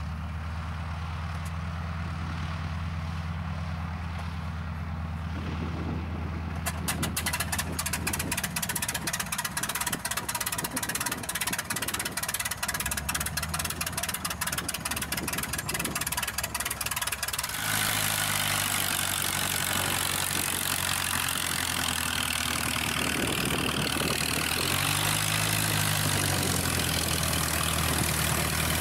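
De Havilland Tiger Moth's Gipsy Major four-cylinder engine running at idle with a steady low drone, overlaid by rapid crackles for about ten seconds. A little past the middle it becomes louder and noisier, and its pitch rises briefly near the end as the biplane taxis on grass.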